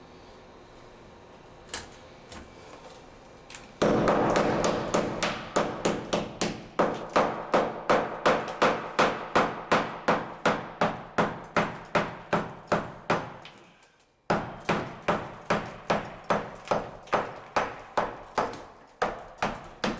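Hammer blows chipping cement and tile out of a shower wall opening, a steady run of sharp strikes about three a second. The strikes start about four seconds in, stop briefly a little past the middle, then carry on.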